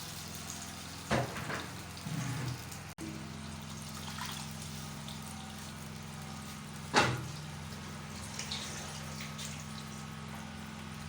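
Rice going into a pot of water: watery splashing and a few sharp knocks against the pot, the loudest about seven seconds in, over a steady low hum.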